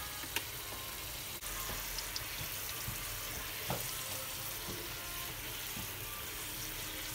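A piece of dough frying in hot oil in a frying pan, a steady sizzle, with a few light clicks of a fork against the pan as it is swirled.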